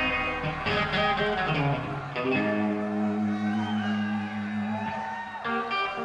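Rock band playing live with loud guitars: chords struck in quick strokes at first, then a held chord ringing on from about two seconds in.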